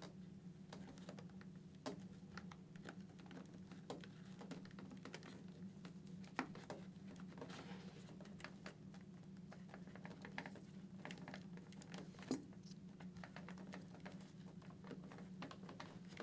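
Faint, scattered light clicks and scratches of fingers pressing a communicator wire and the cheek pad liner into a Shoei GT-Air II helmet's shell, over a low steady hum.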